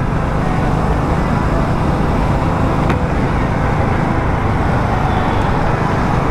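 Motorcycle riding at highway speed: a steady engine drone mixed with wind rushing over the microphone.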